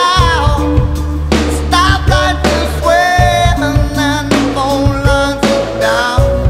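Rock song with a sung vocal over guitar, bass and drums.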